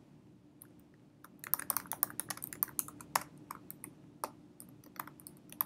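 Typing on a computer keyboard: a quick run of keystrokes starting about a second in, thinning to scattered single key taps toward the end.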